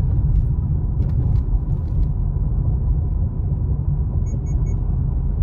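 Road noise inside a moving car: a steady low rumble of tyres and engine. About four seconds in come three short high beeps in quick succession.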